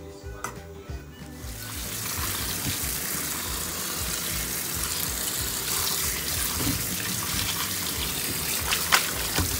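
Tap water running onto boiled fish pieces in a metal colander as they are rinsed by hand; the flow comes in about a second and a half in. A short sharp knock sounds near the end.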